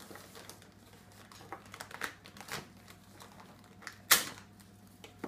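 Wrapping paper rustling and crinkling with scattered light ticks as a small child picks at a paper-wrapped gift box, and one sharp tap about four seconds in.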